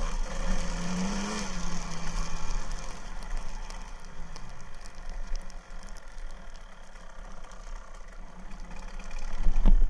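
1999 Kawasaki KDX220R's two-stroke single-cylinder engine running on the move, heard muffled through the camera's sealed case; the revs rise briefly about a second in, then settle lower. A heavy thump near the end.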